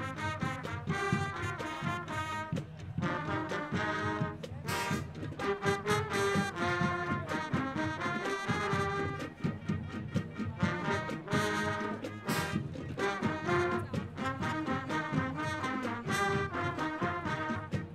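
College marching band playing a brass-led arrangement of pop-rock songs, with the horns carrying the tune over steady drum hits.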